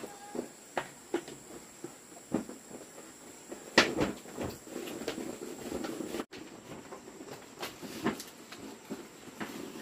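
Irregular light knocks and rattles of dried peanuts being handled on a round tray on a bamboo-slat floor, the loudest knock about four seconds in, with a denser clatter just after it. After a sudden break, scattered knocks continue.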